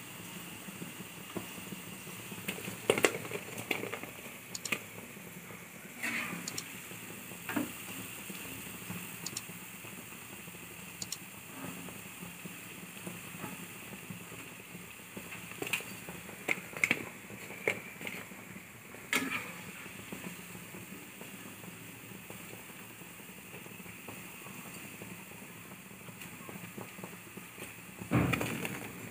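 Onion pakodi deep-frying in hot oil in a kadai, sizzling steadily, with scattered clicks and scrapes of a steel ladle against the pan as they are stirred and lifted out, and a louder scrape near the end.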